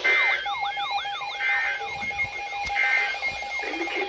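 Emergency Alert System tones received over a radio: three short digital header bursts about a second and a half apart, overlapped by a repeating sweeping alarm tone and a steady attention tone that comes in about half a second in.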